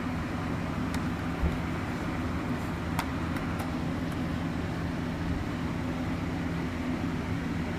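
Small electric motor of a battery-powered toy bullet train running with a steady hum. There is a low thump about one and a half seconds in and a sharp click about three seconds in.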